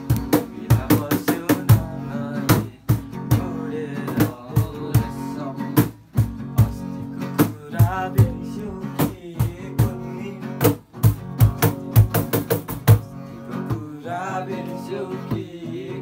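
Acoustic guitar strummed in a steady rhythm, with many sharp percussive beats running along with it.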